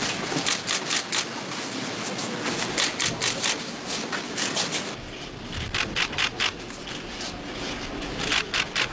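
Many camera shutters clicking in irregular rapid clusters, often in quick pairs, over a steady background hum, as press photographers shoot a handshake line.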